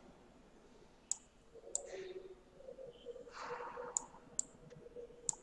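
About five short, sharp computer mouse-button clicks, spread irregularly, over faint background noise.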